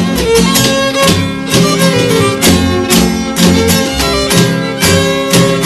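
Chilena band playing an instrumental passage: violin carrying the melody over guitar, bass and percussion, with a steady beat.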